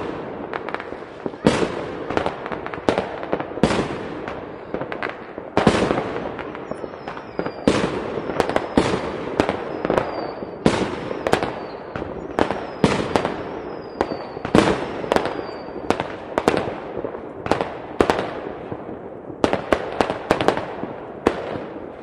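Fireworks going off in quick, irregular succession, each bang trailing off into crackle, with thin high whistles heard several times in the middle.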